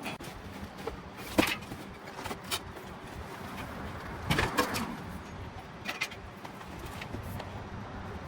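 Scattered knocks and clunks of a water heater and its parts being loaded, the heaviest cluster a little past the middle, over a low steady background rumble.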